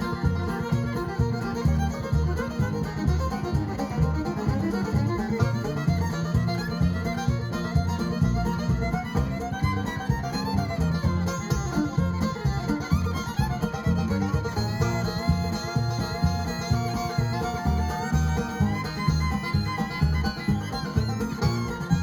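Bluegrass-style band playing an instrumental passage: fiddle carrying the melody over guitar, bass and percussion, with a steady beat.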